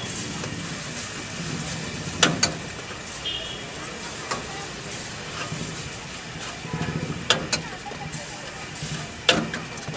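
Maggi noodles sizzling in a wok as a steel ladle stirs them through the masala liquid while they fry down to finish. A few sharp clangs of the ladle striking the wok come about two seconds in, twice around seven seconds, and once near the end.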